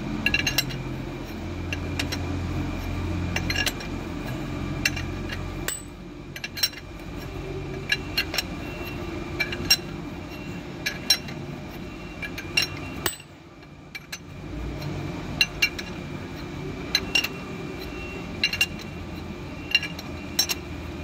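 Sharp metal clinks, roughly one a second, as a combination wrench is worked on the nut of a threaded injector-cup puller, drawing an old injector cup out of a Volvo D12 cylinder head. A steady low hum sits underneath.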